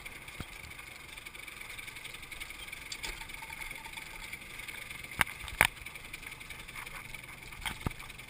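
Motorbike rolling slowly over a rough dirt track: a steady hum of the ride, with two sharp knocks about five seconds in and two more near the end.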